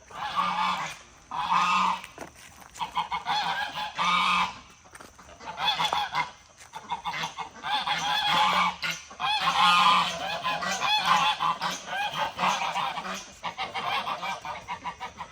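Farm poultry giving loud, repeated calls, several birds overlapping, in bursts with short pauses between.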